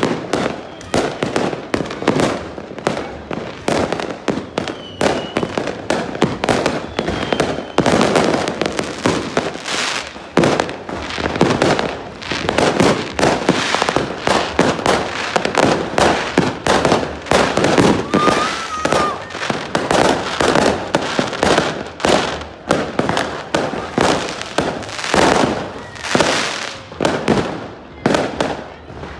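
Fireworks going off in a dense, continuous barrage of bangs and crackling pops, with no pause between them.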